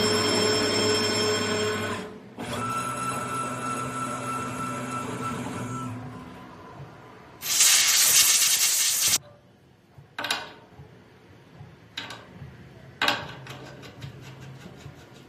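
An electric servo tapping machine running with a steady motor whine that changes pitch about 2 s in and fades out. It is followed by a loud burst of hiss lasting under two seconds, then a few sharp clicks.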